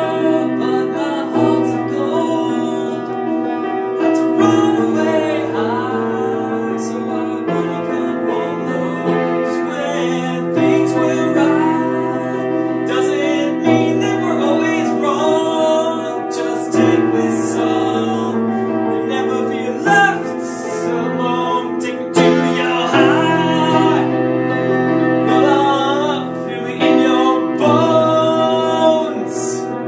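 Wm. Knabe & Co. grand piano being played: held chords over a bass note that changes every one to three seconds, with a voice singing along.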